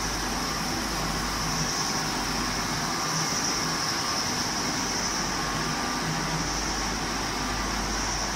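Steady machinery noise of a waste-oil distillation plant's electric motors and pumps running: an even low hum under a steady high-pitched hiss.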